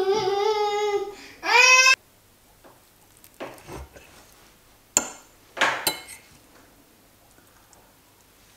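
A fork cutting into a soft baked cauliflower gratin and clinking and scraping on the plate, a few short strokes in the middle. It follows a brief high, pitch-bending voice, sung or babbled, in the first two seconds.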